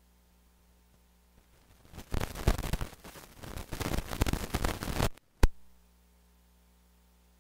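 Crackling static in the audio line: about two seconds in, a loud, irregular crackle sets in, runs about three seconds, cuts off suddenly, and is followed by a single sharp pop. A low steady hum lies underneath throughout.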